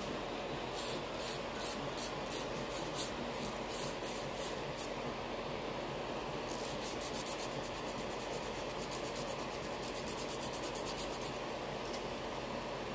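Short rubbing strokes against a steady background hiss. They come two or three a second for the first few seconds, pause, then run quicker for several seconds.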